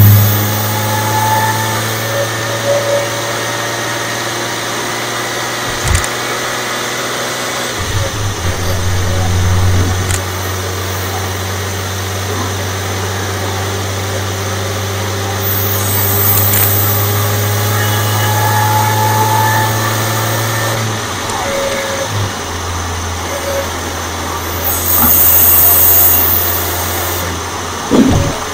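2016 Audi S4's supercharged 3.0-litre V6, with a stage 1 tune and an aftermarket intake, running while driving, heard from under the engine: a steady low drone that steps down in pitch a couple of times, with faint supercharger whine slowly sliding in pitch above it. Brief rushing intake hiss swells about halfway through and again near the end, the second time the loudest.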